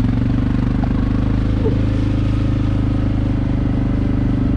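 Four-wheeler (ATV) engine running steadily while riding, a constant low engine drone with even firing pulses.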